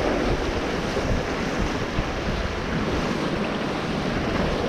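Ocean surf washing against a rock ledge, with wind buffeting the microphone in a steady low rumble.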